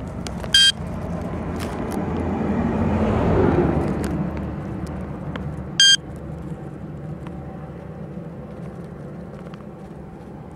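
A car passes on the road, its noise swelling to a peak about three and a half seconds in and then fading. A short, high electronic beep sounds twice, about five seconds apart.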